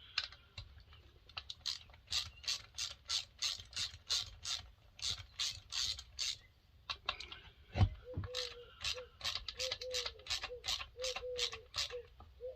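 Hand socket ratchet clicking steadily, about three clicks a second, as it turns a bolt on a McCulloch 7-10 chainsaw being disassembled, with a single louder knock about eight seconds in.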